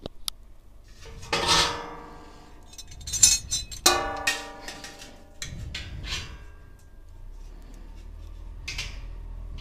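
Stainless steel grain basket clanking against a stainless steel brew kettle as it is handled and set in, with three loud ringing metal knocks, the first about a second and a half in and two more around three to four seconds in, then a few lighter knocks.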